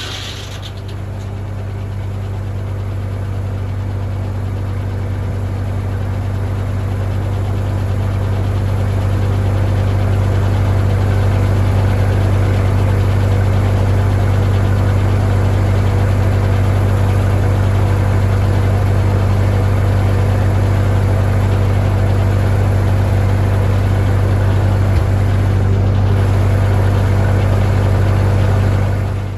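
Straight-piped Farmall Super M tractor engine running steadily, driving the sawmill with the blade spinning free between cuts. It grows gradually louder over the first ten seconds, then holds a steady note.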